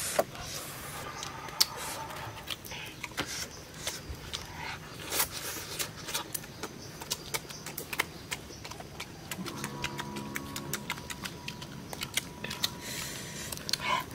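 Close-up eating sounds: irregular sharp mouth clicks and lip smacks as grilled fish is chewed and picked apart by hand.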